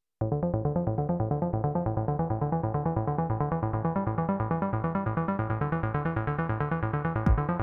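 Roland S-1 synthesizer playing a fast sequenced arpeggio on a square-wave oscillator with some saw and sub oscillator mixed in, a quick even stream of short notes that grows gradually brighter. Just before the end a kick drum and ticking hi-hats from the T-8 rhythm machine come in.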